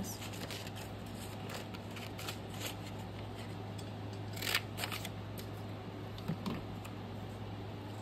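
Paper being handled: light rustles and small taps of book pages, with one sharper rustle or snip about four and a half seconds in and a smaller one a couple of seconds later, over a steady low hum.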